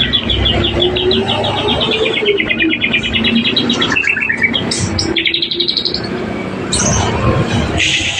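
White-rumped shama (murai batu) in breeding condition singing its courting song: fast runs of repeated high notes, about ten a second, dropping in pitch near the middle, then another quick rising run and a few short notes.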